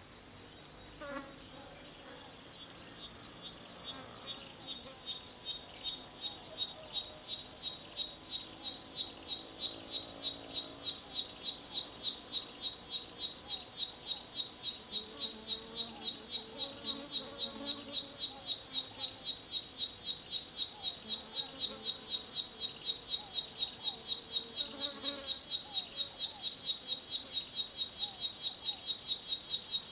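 Cicada singing: a high, pulsing buzz about three times a second that swells over the first ten seconds or so and then holds steady and loud.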